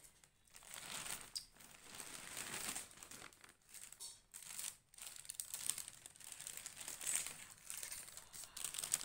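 Paper and foil wrapping crinkling and rustling in irregular spurts as a homemade cake is unwrapped from its packaging.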